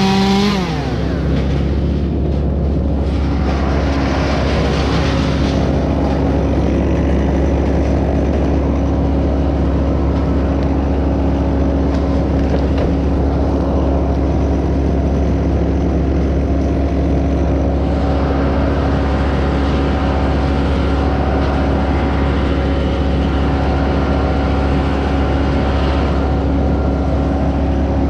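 An engine running steadily with a low rumble and a steady hum. A high rev falls away about half a second in, and the engine keeps running at an even pace after that.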